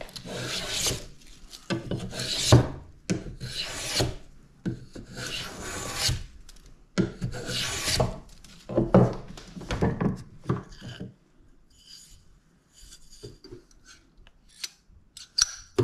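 Hand plane shaving a wooden violin bass bar blank down to thickness, in long strokes about every one to two seconds. About eleven seconds in the planing stops, leaving only a few light taps of the wood being handled.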